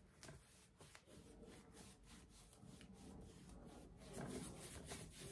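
Faint rubbing of a paintbrush dragging acrylic paint across a canvas in repeated strokes, a little louder near the end.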